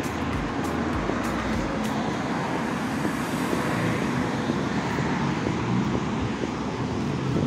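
Steady road-traffic noise from cars passing on a city street, a continuous rush of tyres and engines.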